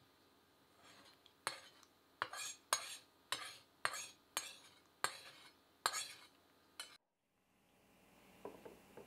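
A utensil scraping and knocking masala and oil out of a cooking pan into a serving dish: about ten quick strokes, roughly two a second, that stop abruptly about seven seconds in, followed by a few soft faint strokes near the end.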